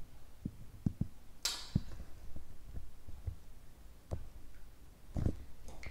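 Soft, irregular taps of fingers typing on a smartphone touchscreen keyboard, with a brief rustle about a second and a half in.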